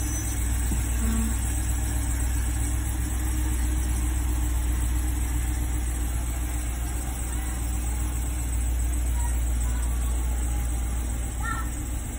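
Full-size pickup truck's engine running with a steady low rumble as the truck creeps forward at low speed.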